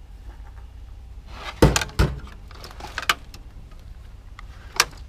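Metal tools knocking and rattling against each other in a toolbox as they are sorted through: a few sharp clanks, the loudest about two seconds in, over a low steady rumble.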